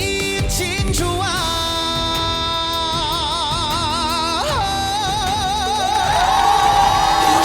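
Trot song with band accompaniment reaching its ending: a long held vocal note with vibrato, then a slide up onto another held note as the music swells louder near the end.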